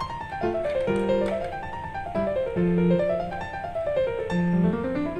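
Background piano music: quick runs of notes climbing and falling over held low notes.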